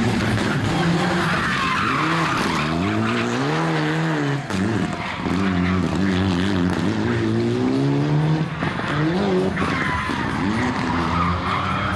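Mitsubishi Lancer Evolution rally car's turbocharged four-cylinder engine revving hard, its pitch climbing and dropping several times as the driver accelerates, lifts and changes gear between tyre chicanes. Tyres squeal through the turns near the start and again near the end.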